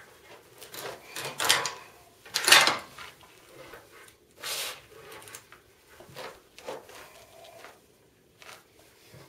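Handling of a Barrett 99-1 single-shot bolt-action rifle being readied to fire: two loud sliding metal clacks about one and a half and two and a half seconds in, then quieter clicks and rustles as the shooter settles behind it.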